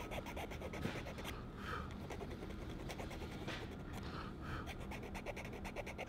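Soft, close breathing with faint scraping of a small hand tool on a hawk's overgrown beak as the beak is trimmed (coped).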